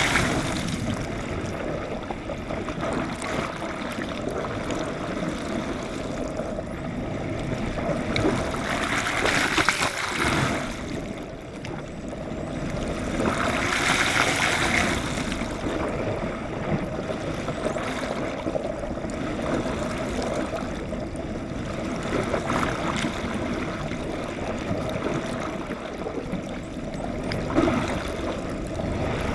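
Water rushing past an underwater GoPro held on a boat hook from a moving yacht: a steady churning wash, with louder surges of bubbling splash at the start, about ten seconds in and about fourteen seconds in.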